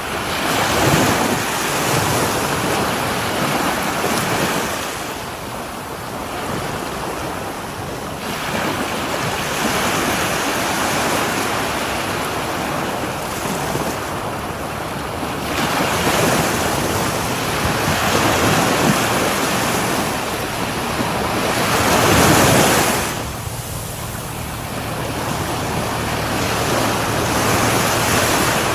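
Ocean waves breaking on a shore, the surf swelling and washing back every few seconds, with the largest wave breaking about three quarters of the way through. Some wind on the microphone.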